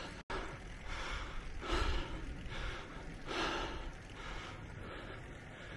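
Road cyclist breathing hard while climbing, a puff of breath roughly every second, over a low wind rumble on the microphone. The breaths fade near the end.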